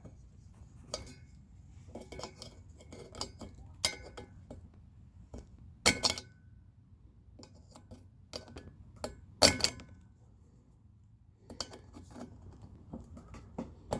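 Needle-nose pliers clicking and clinking against the small metal fastener on a refrigerator fan motor's blade hub as it is tightened: scattered light ticks, with two louder clinks about six and nine and a half seconds in.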